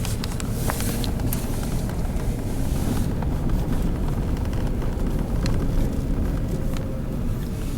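Semi trucks' engines running in a steady low rumble, with wind on the microphone.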